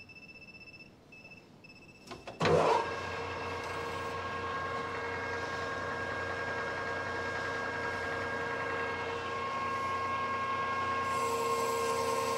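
Metal lathe taking a cut with a carbide insert on the bandsaw-cut face of heavy-wall steel tubing. About two and a half seconds in, a sharp knock marks the tool engaging. A steady cutting whine with a high ring follows and gets louder near the end. The face being cut holds broken bandsaw blade teeth, which tear up and chip the insert.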